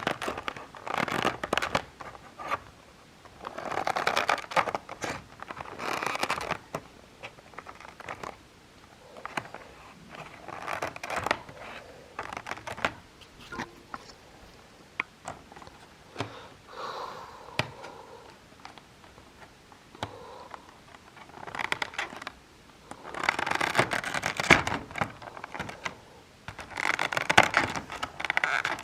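Hands opening a model airplane box: cardboard and packaging scraping and rustling in irregular bursts, with small clicks.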